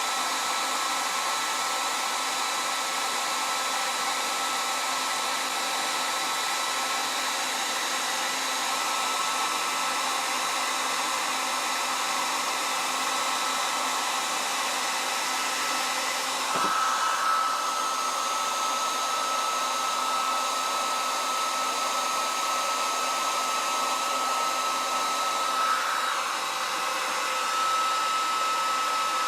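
Handheld hair dryer running steadily, blowing hot air to shrink heat-shrink tubing, with a steady whine over the rush of air. About halfway through there is a brief knock, and after it the whine is stronger.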